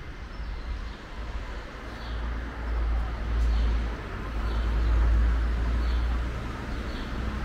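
Outdoor street ambience: a low rumble that swells twice, around the middle, over a steady background hiss, with faint high bird chirps every second or so.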